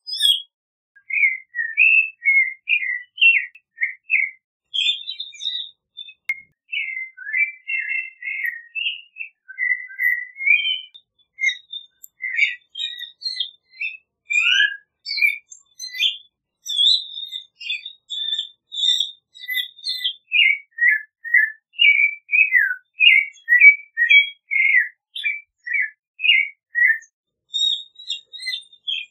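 Clay-colored thrush singing: a long, continuous run of short slurred whistled phrases, one after another with hardly a pause.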